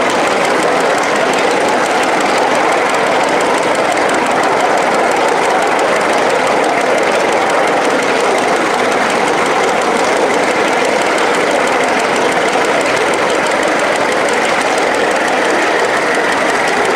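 A 1-inch scale live steam 0-4-0 switcher locomotive under way, making a steady, even noise as the running engine and its wheels travel along the rails.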